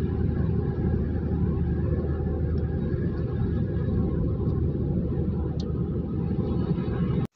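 Car driving at road speed, heard from inside the cabin: a steady low rumble of engine and tyres on asphalt, cutting off suddenly near the end.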